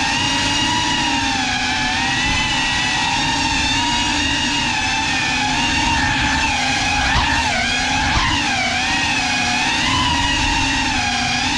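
GEPRC CineLog35 cinewhoop FPV drone's motors and propellers whining steadily in flight, picked up by the GoPro riding on the drone. Around the middle the pitch dips and swings up and down several times as the throttle changes.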